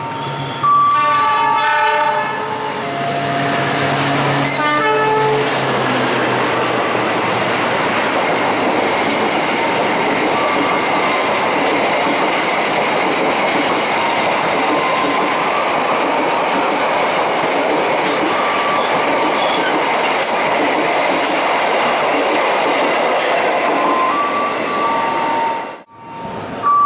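Diesel locomotive horn sounding in several blasts as the train approaches, its pitch dropping as it goes by. Then the steady rumble and wheel clatter of passenger coaches running past for about twenty seconds.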